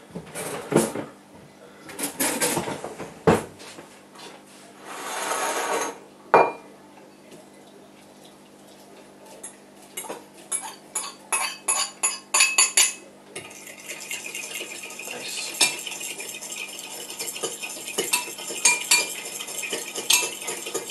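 A spoon clinking, tapping and scraping against a bowl and a plastic measuring jug as sugar is measured out. There is a short hiss about five seconds in, then a sharp knock, a quick run of taps around ten seconds in, and steady scraping through the last several seconds.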